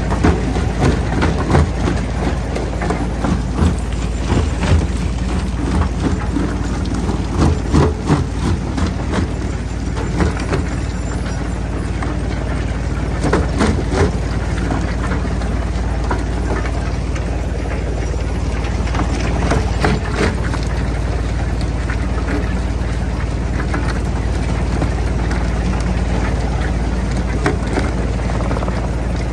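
Jaw crusher running with a steady low drone, rock cracking and knocking as it is crushed in the jaws; the cracks come thick over roughly the first two-thirds, then the machine runs on more steadily.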